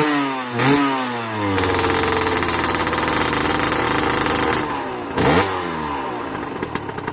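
Sherco 50cc two-stroke dirt bike on its stock exhaust, revved in two quick blips. It is then held at high revs for about three seconds and blipped once more before dropping back toward idle.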